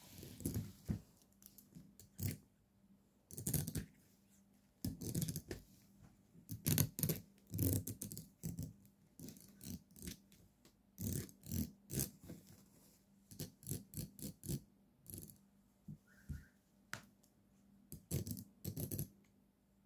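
A fountain pen clicking and rattling against a spiral-bound notebook as a cat bats at it with its paw. The light taps come in uneven clusters with short pauses between them, over a faint steady hum.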